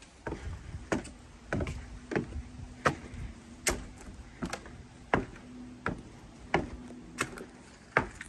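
Footsteps climbing wooden stairs and stepping onto a wooden deck, a steady walking pace of about one step every two-thirds of a second.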